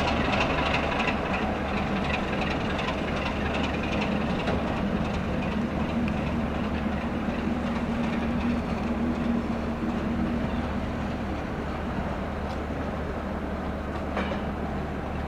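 Class 33 diesel locomotive and coach on the move: the engine runs steadily under a low hum, with a run of wheel clicks over rail joints in the first couple of seconds, the whole sound slowly fading toward the end.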